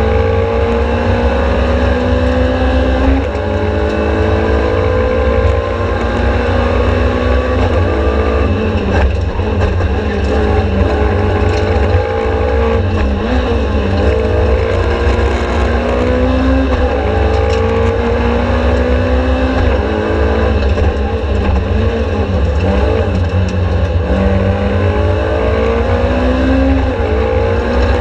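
Race car engine at full effort, heard from inside the cockpit. Its note climbs in long sweeps through the gears and falls back again and again at gear changes and on lifting for bends, over a constant heavy low rumble.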